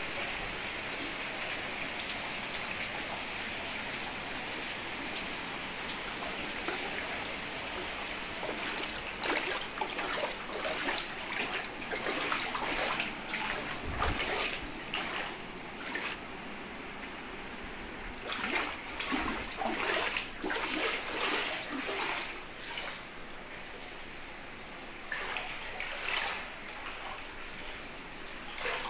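Rain falling steadily on standing floodwater. From about nine seconds in, irregular splashes and sloshing join it, as of feet wading through water covering a floor.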